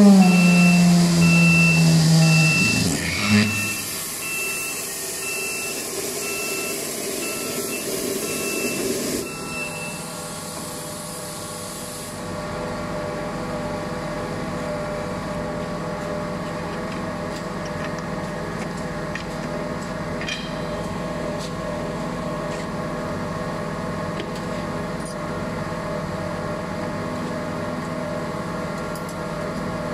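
Hydraulic bladder curing press opening. A loud machine hum drops a little in pitch over the first couple of seconds, while an alarm beeps about twice a second for the first nine seconds. A rushing hiss runs until about twelve seconds in, and after that only the press's hydraulic unit hums steadily.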